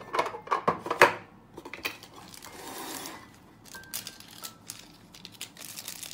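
Hands handling a small cardboard drawer organizer: a few sharp knocks and taps as it is set down on the desk, the loudest about a second in. Then a soft rustle and small ticks as clear plastic is peeled and handled.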